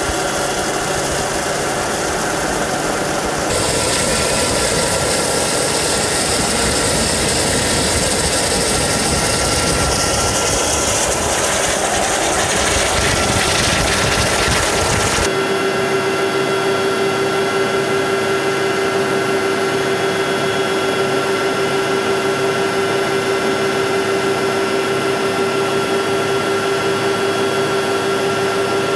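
Helicopter turbine engines and rotor running steadily, a dense rushing noise with a thin high whine. About halfway through, the sound switches abruptly to the cockpit interior: a steady hum with the whine over it.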